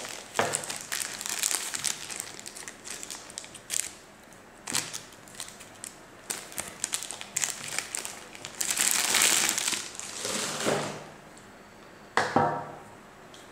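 Thin clear plastic bag crinkling and rustling in irregular bursts as a coiled power cord is worked out of it, loudest about nine seconds in.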